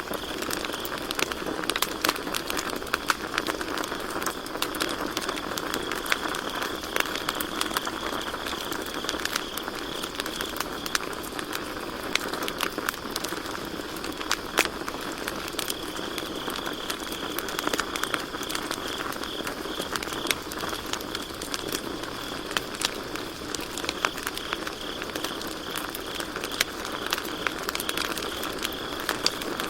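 Campfire crackling, with irregular sharp pops from the burning wood over a steady hiss. Crickets trill steadily and high in the background, fading a little for a while in the middle and coming back.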